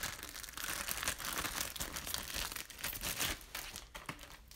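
Crinkling and crackling of a plastic slime container being handled and opened, heard as a dense, irregular run of small clicks.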